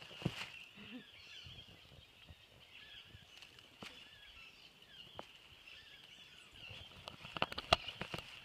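A goanna's claws scratching and scrabbling in dry leaf litter and soil as it digs at an echidna puggle. The scrapes and clicks are scattered, with a quick flurry of them near the end.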